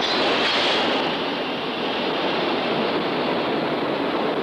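Steady roar of a fishing ship's engine-room machinery running ahead, with a brighter hiss over the first second that fades away.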